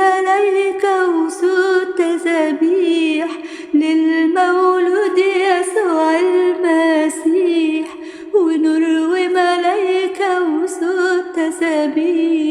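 A woman singing a Christmas hymn tune alone, unaccompanied, in long phrases with a wavering pitch and short breaks about 4 and 8 seconds in.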